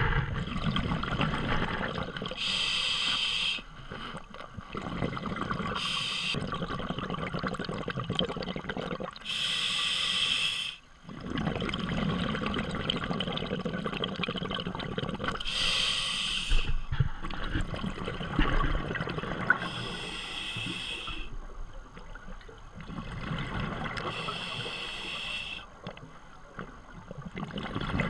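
Scuba diver's regulator breathing heard underwater: a hissing inhale about every four to five seconds, six in all, alternating with the low rumbling gurgle of exhaled bubbles.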